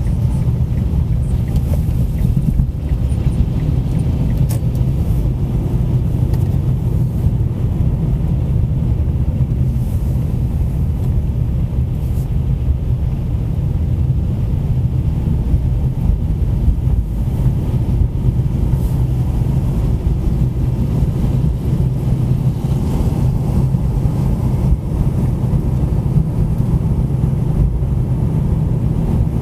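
A car driving on city roads: a steady low rumble of tyres and engine, with a few faint knocks from the road surface.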